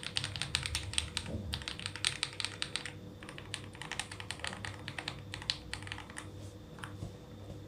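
Mechanical keyboard fitted with Akko CS Rose Red linear switches, lubed with Krytox 205g0/105, typed on in fast runs of keystrokes that thin out after about three seconds. A clacky sound, typical of a switch with a polycarbonate top housing, with almost no leaf ping.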